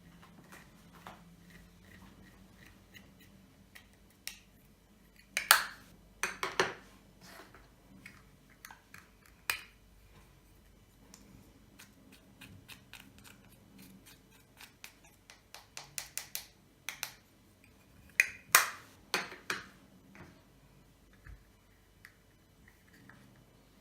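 White fluffy slime being kneaded and stretched by hand, giving scattered sticky clicks and pops, with two louder clusters of pops about a quarter of the way in and again around three quarters through.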